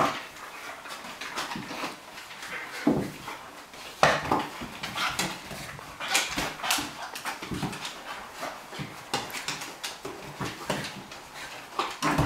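A Cairn terrier and a flat-coated retriever play-fighting: irregular short dog vocal noises mixed with many sharp clicks and scuffles of claws and bodies on a wooden floor.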